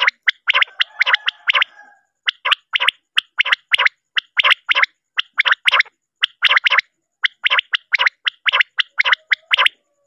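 Male common quail calling over and over, its short sharp notes coming in quick triplets (the 'wet-my-lips' call) about once a second.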